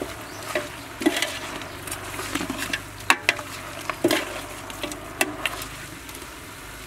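Metal ladle scraping and clinking irregularly against a stainless steel pot as ingredients are stir-fried, over a faint steady sizzle.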